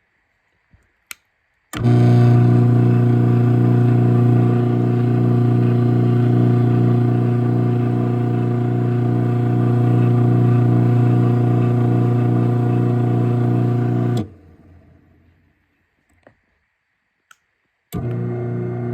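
Craftsman 1/2 hp garage door opener (model 139.53930DM) running. A click, then the motor starts and runs steadily for about twelve seconds with a low hum and an even, rhythmic pulsing. It stops abruptly, two faint clicks follow, and it starts again near the end.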